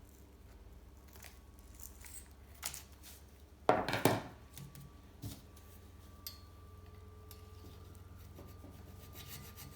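Hand work with a metal file on a steel bicycle frame: scattered small knocks and handling noises, a loud rasping scrape about four seconds in, and quick, even file strokes starting near the end.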